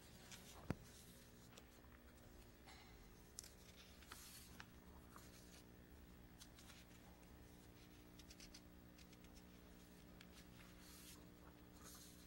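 Near silence: room tone with a faint steady hum and a few soft clicks and rustles.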